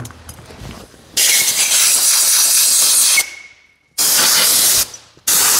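Compressed-air blow gun fired in three blasts of hiss, the first about two seconds long and the next two shorter, blowing packed dirt out of the threaded bolt holes in a tractor PTO housing.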